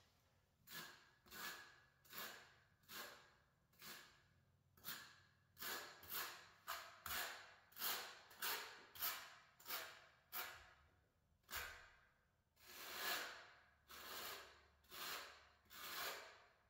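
Notched steel trowel scraping thinset mortar onto a concrete floor: a steady run of short scraping strokes, about one to two a second, with a few longer strokes near the end.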